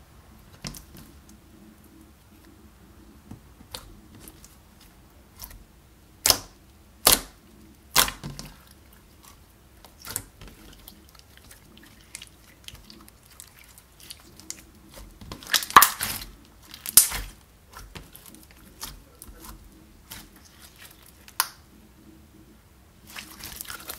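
Clear slime being kneaded and stretched by hand with pigment powder worked into it: irregular sticky pops, clicks and squelches, coming thickest a quarter of the way in and again about two-thirds through.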